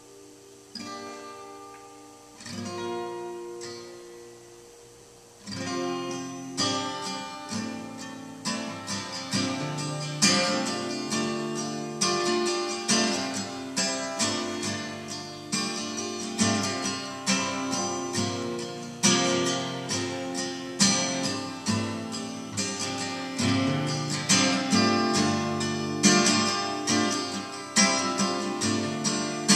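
Acoustic guitar playing. A few picked notes ring out and fade, then, about five seconds in, it breaks into a louder, steady strummed rhythm.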